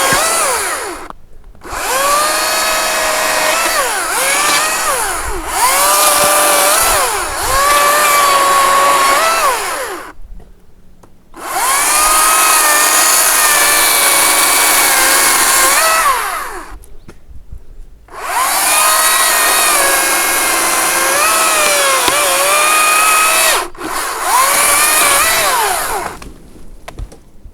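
Makita 40V cordless top-handle chainsaw cutting dead branches in several long runs with short pauses between them. The motor's whine dips in pitch as the chain bites into the wood and rises again as it frees up.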